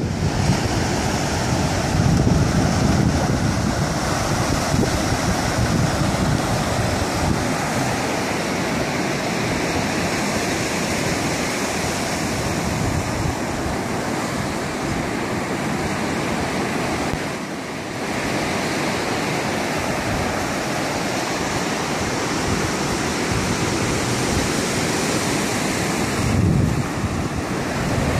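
Ocean surf breaking and washing up a sandy beach in a steady rush, with wind buffeting the microphone in low gusts near the start and again near the end.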